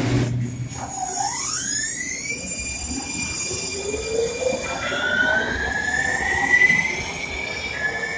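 San Diego Trolley light-rail train pulling away, its electric traction drive whining in tones that climb in pitch as it accelerates: once about a second in, and again from about five seconds in.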